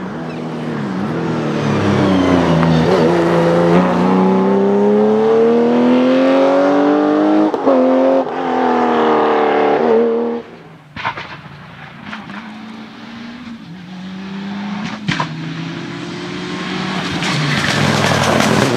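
Rally cars at full throttle. A classic Porsche 911's flat-six pulls hard as it approaches, its pitch climbing through the gears with a shift about seven and a half seconds in, and stops abruptly about ten seconds in. Then a quieter engine is heard at a distance with two sharp cracks, and near the end a Mitsubishi Lancer Evolution's turbocharged four-cylinder rises as it comes close.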